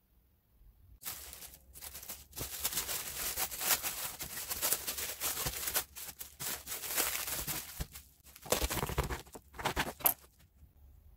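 Thin plastic film crinkling and rustling as hands wrap it tightly around a baguette sandwich, in bursts with short pauses, starting about a second in and stopping near the end.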